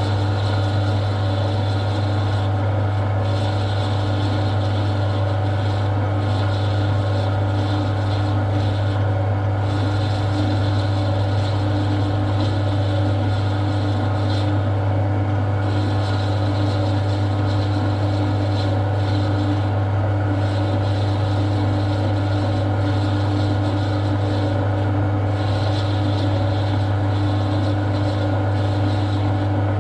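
Metal lathe running steadily as a parting tool cuts off the workpiece. A steady low hum from the machine, with a higher cutting noise that comes and goes every few seconds.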